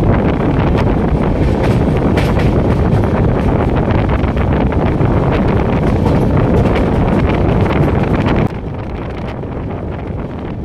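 Wind buffeting the microphone over the running noise of a moving train. About eight and a half seconds in, the noise drops abruptly and turns duller.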